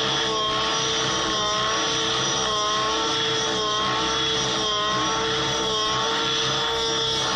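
Petrol engine and rotors of a T-Rex 700 radio-controlled helicopter running steadily, the pitch wavering slightly up and down.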